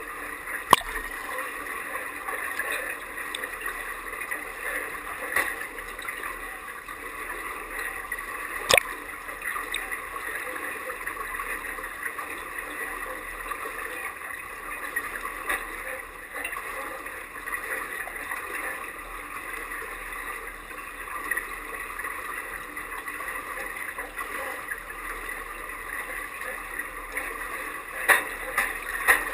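Pool water lapping and gurgling around a half-submerged camera, a steady wash of water noise. A few sharp knocks cut through it, the loudest about a second in and a cluster near the end.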